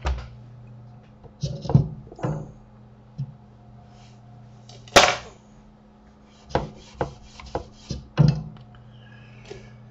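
Irregular knocks and rubbing scrapes: a loud knock about five seconds in and a quick run of them near the end, over a steady low electrical hum.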